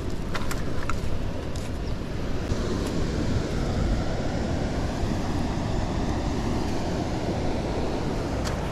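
Wind buffeting the microphone with footsteps on dry leaf litter and twigs, with a few sharp snaps near the start and again near the end.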